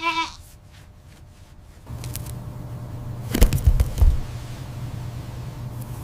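A lamb bleats once, briefly. About two seconds in, a steady low hum sets in, and a cluster of dull thumps and crackles follows around the middle.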